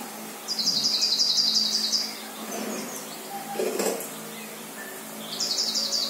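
A small songbird's trill, a quick run of repeated high notes lasting about a second and a half, played from a bird video through a TV's speakers. It comes again near the end, over a steady low hum, with a short knock a little before four seconds in.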